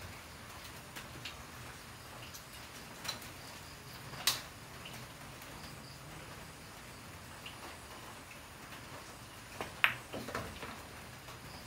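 Pool shot: a close pair of sharp clicks near the end as the cue tip strikes the cue ball and the cue ball strikes the object ball, followed by a few quieter knocks as the balls roll on and one is potted. A single sharp click about four seconds in.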